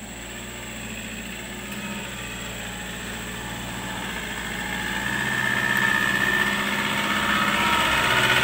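Vehicle engine running, getting steadily louder.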